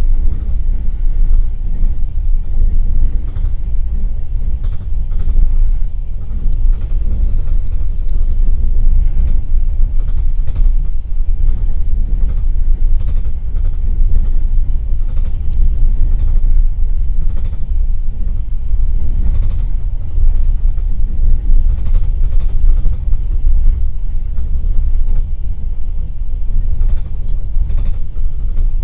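A passenger train coach running along the track: a steady low rumble from the wheels and running gear, with scattered light creaks and clicks from the carriage body.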